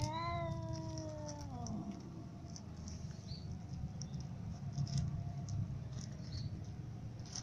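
A cat meows once, a drawn-out call of about a second and a half that drops in pitch as it ends, then cats crunching dry kibble from a plastic tub with faint scattered clicks.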